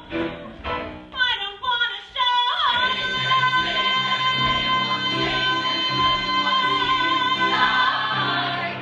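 Singing with musical accompaniment: a few short sung phrases, then one long high note held for about six seconds near the end of the phrase.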